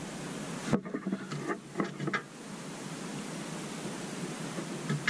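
Steady background hiss, with a few short clicks and knocks in the first two seconds.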